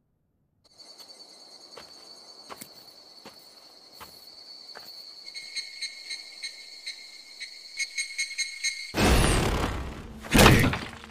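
Anime soundtrack: insects chirring steadily with a pulsing call, over soft thumps spaced a little under a second apart. Near the end come two loud, sudden crashing bursts about a second and a half apart.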